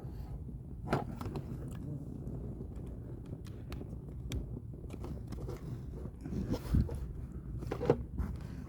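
Hands working the plastic and metal parts of a seat belt retractor, making scattered clicks, taps and scraping. The sharpest clicks come about a second in and near the end.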